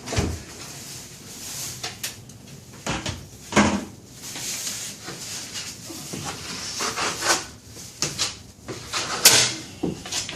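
Metal drywall taping knife scraping joint compound over a sheetrock seam, with hissing strokes broken by several sharp clacks of the knife, the loudest near the end.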